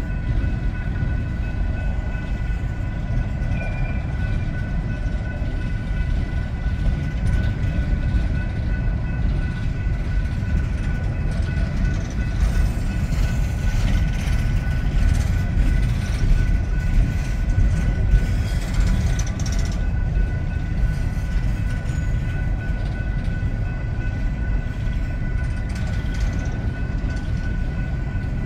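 Empty coal cars of a slow-moving freight train rolling past, a steady low rumble of wheels on rail, with a steady high tone above it. The rumble gets a little louder and harsher for several seconds in the middle.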